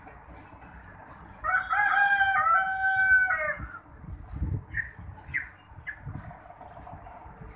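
A caged chicken crowing once, one loud call of about two seconds that drops at the end. It is followed by a few short, high chirps and a couple of dull low knocks.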